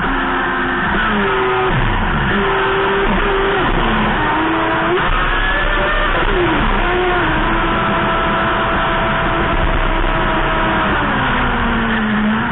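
Onboard sound of a 3D-printed RC hydroplane at high speed: its electric motor whines, the pitch sliding up and down several times with the throttle, over a constant rush of water and spray against the hull.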